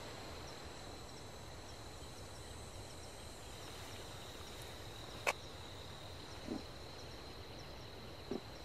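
Faint rural ambience of insects: a steady high drone with faint repeated chirps above it. A single sharp click comes about five seconds in, and two brief soft sounds follow later.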